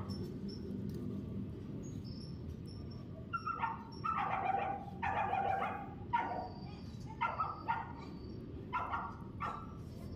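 A dog barking in a run of short barks, some in quick pairs, starting about three and a half seconds in, over a steady low hum.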